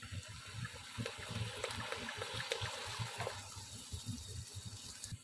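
Chili sauce poured in a thin stream from a bottle into a metal kadai of spiced chicken, a steady trickle that fades out about three and a half seconds in.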